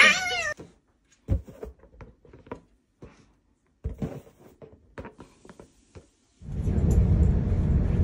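A few short meow-like calls and clicks, scattered and separated by near silence, then a steady background hiss that starts about six and a half seconds in.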